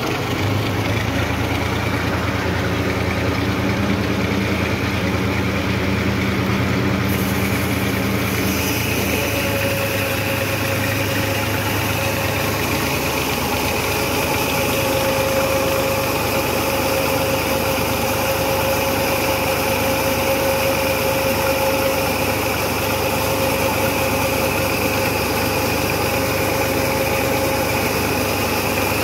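Tractor engine running steadily while it drives a saw cotton gin through a PTO shaft and belt-and-pulley drive. From about nine seconds in, a steady whine from the spinning gin machinery joins the engine's low note.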